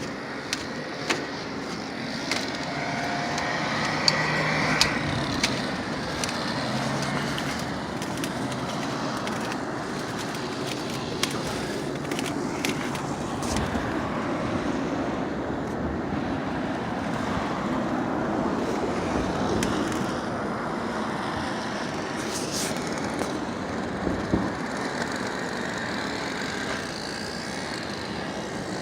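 Steady road-traffic noise, with scattered sharp clicks over it.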